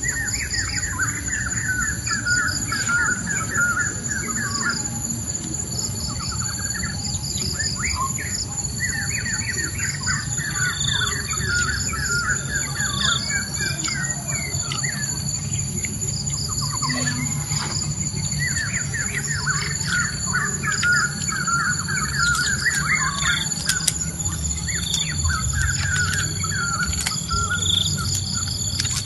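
Wild birds singing in the countryside: a chattering, trilled phrase repeated in bouts several seconds apart, with higher chirps between. Underneath are a continuous high-pitched insect drone and a low steady rumble.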